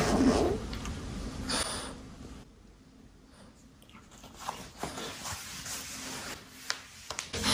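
A loud noisy sound in the first half second, then the French bulldogs' snorting breaths with faint rustles and small clicks.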